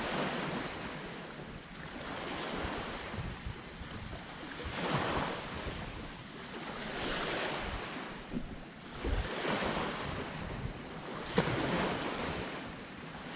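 Small waves washing in at the shoreline, swelling and ebbing about every two seconds, with wind rumbling on the microphone.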